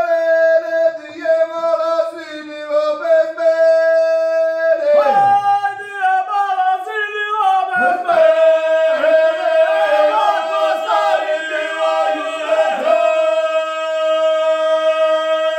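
Several men singing together unaccompanied, long held notes over a lower voice sustaining a steady drone, with the upper voices shifting pitch now and then.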